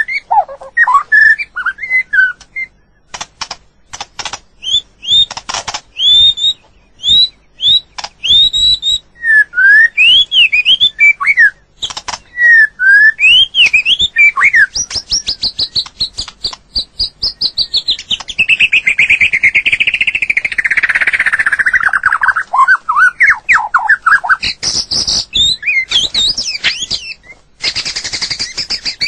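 White-rumped shama singing: a varied run of loud whistled notes that slide up and down, mixed with sharp clicks. About two-thirds of the way through, a long rapid chattering passage runs for several seconds before the whistles return.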